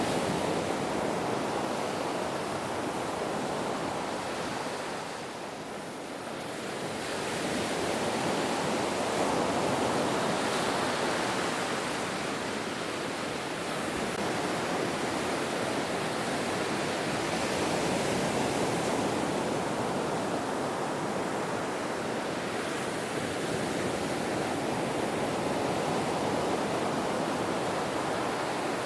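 Ocean waves washing in as a continuous surf roar that eases off briefly about six seconds in, then swells again and holds steady.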